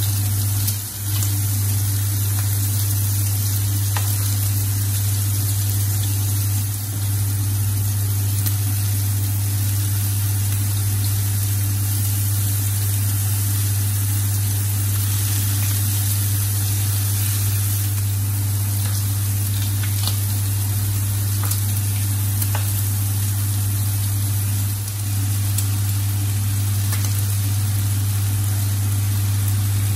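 Burger patties, bacon and onion rings sizzling on an electric teppanyaki griddle, with a few light clicks of tongs and a spatula on the plate, over a loud steady low hum.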